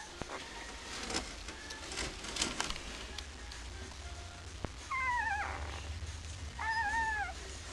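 A newborn Swiss White Shepherd puppy crying twice in high squeals. The first cry wavers and falls and the second is arched, after a few soft clicks.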